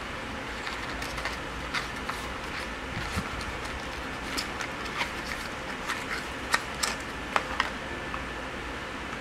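Cardboard earphone holder and its plastic wrapping being handled and pulled apart: small crinkles and sharp clicks, coming more often in the second half, over a steady background noise.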